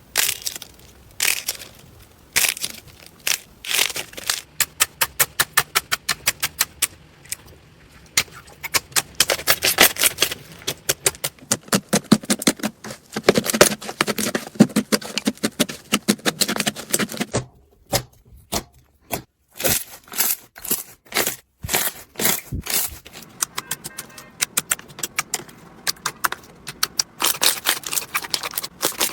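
Slime being squeezed and pressed by hand, giving dense runs of crackling, popping clicks, with a couple of short pauses in the second half.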